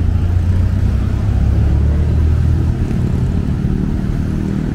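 A motor vehicle's engine running close by, a low rumble that eases off about three seconds in, over general street noise.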